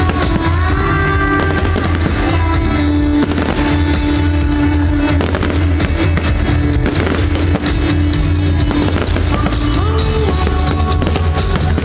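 Loud music with a strong, steady bass line, with fireworks going off throughout as repeated sharp bangs and crackles.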